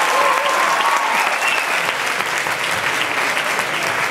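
Audience applauding, with a cheer over it in the first second or two.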